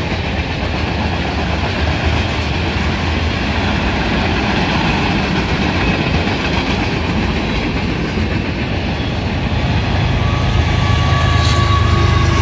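Freight cars of a long mixed freight train rolling past at speed, their wheels clicking over the rail joints. About ten seconds in, a deeper engine hum and a steady whine build as a diesel locomotive, the train's rear distributed-power unit, draws near.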